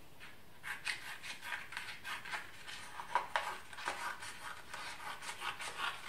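Scissors snipping through thin card, cutting a strip from the sheet in a steady run of short cuts that starts just under a second in.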